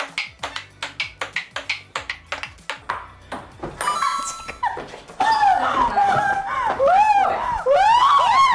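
Ping-pong ball rally on a small tabletop table: a quick run of sharp clicks as the celluloid ball hits the paddles and the table, about three to four a second. The rally stops a little over three seconds in, and after a short lull come loud swooping shrieks and laughter from the players.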